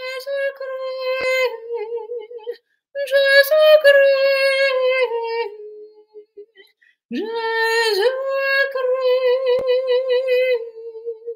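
A woman singing alone, unaccompanied, in three long held notes at about the same pitch, with short breaks between them. The second note sinks a little at its end, and the last one wavers with vibrato.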